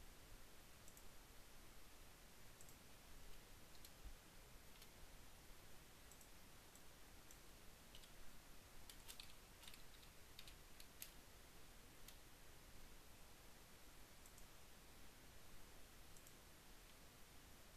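Faint computer mouse and keyboard clicks scattered through near silence, with a quick run of keystrokes about halfway through.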